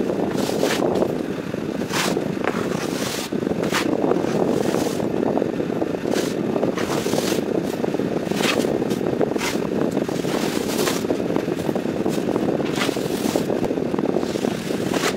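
A plastering trowel scraping a cement skim coat across a rendered wall in repeated short strokes, over a steady low rush.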